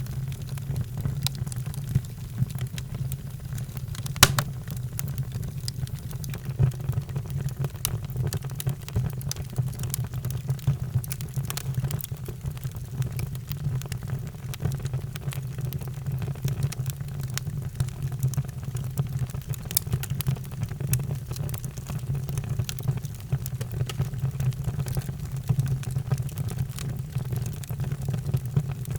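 Wood fire in a fireplace crackling: a steady low rumble of the burning with frequent sharp pops and snaps, one louder pop about four seconds in.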